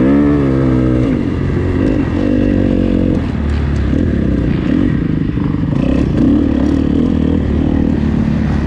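Motocross dirt bike engine revving up, holding a steady note for a couple of seconds, then running rougher with the pitch rising and falling as the throttle goes on and off.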